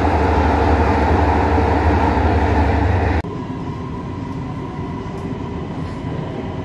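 Metro train heard from inside the carriage: a loud, steady running rumble with a strong low hum. About three seconds in it cuts off sharply to a quieter, steady cabin hum.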